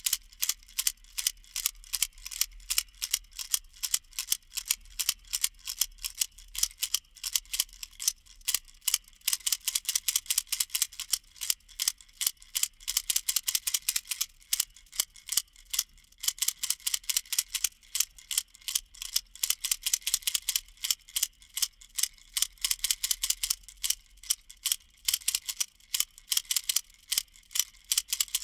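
Handheld baby rattle being shaken continuously, several crisp shakes a second. Each shake is a bright clatter of many small clicks.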